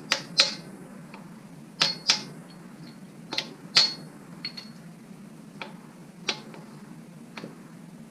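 Metal tools and engine parts clinking as a main bearing cap comes off a small-block Chevy: about ten sharp, irregular clinks, some with a short metallic ring.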